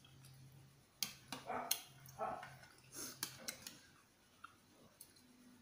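Spoon and fork clinking and scraping against a ceramic soup bowl several times while eating, mixed with a few short, mid-pitched, voice-like sounds, over a faint steady low hum.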